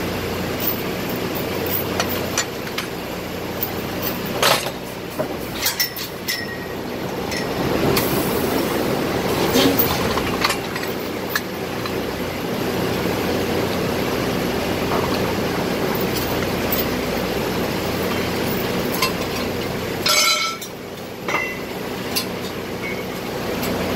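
Drilling rig floor machinery running with a steady drone, broken by sharp metallic clanks of tools and drill pipe. A cluster of clanks near the end rings briefly.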